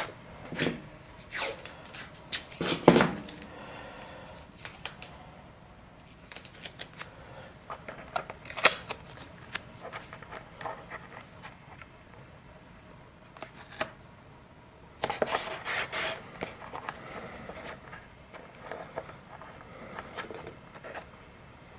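Blue masking tape being pulled off the roll, torn and pressed down by hand: a run of crackles and short rips, loudest about three seconds in and again around fifteen to sixteen seconds.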